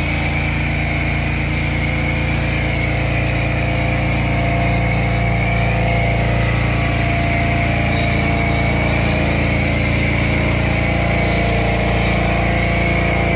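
Small gasoline engine running at a steady speed, typical of a gas-powered pressure washer in use, with a wavering high whine over the engine note.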